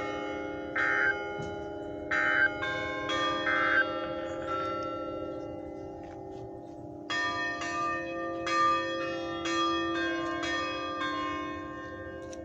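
Tower chime bells ringing a tune, several bells struck together so that chords sound, apparently played by hand by bell ringers. A run of strikes, a pause of about two seconds while the bells hum on, then a second run.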